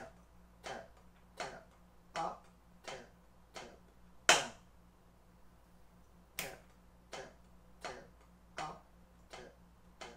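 Drumsticks striking a practice pad slowly, one stroke at a time, about one and a half strokes a second: six soft taps and then a much louder accented stroke, the sticking R R L L R R L of a sixteenth-note accent exercise with doubles. After a short pause the soft taps start again.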